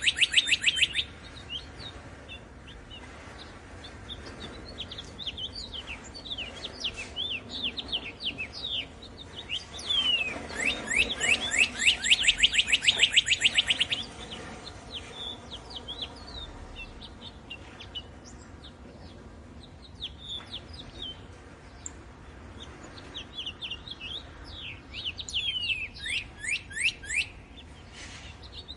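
Birds singing and chirping. Loud rapid trills of quick falling notes come in the first second and again from about ten to fourteen seconds in, with scattered chirps between and a busier run of calls near the end.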